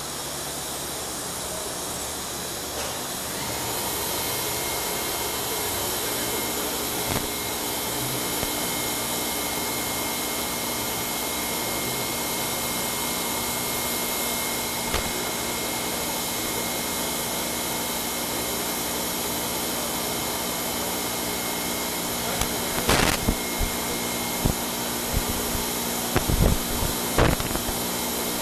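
Ross ME-105 high shear emulsifier mixer running dry, its 5 hp top-mounted motor and stainless mixing head giving a steady hum with a thin, steady whine. A handful of sharp knocks come in the last few seconds.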